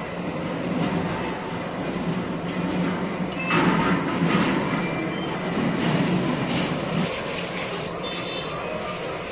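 Flame of a handheld gas-canister torch burning with a steady rushing noise while brazing a copper pipe joint on a rotary air-conditioner compressor, getting louder from about three and a half seconds in to about seven seconds in, with a few faint high squeaks.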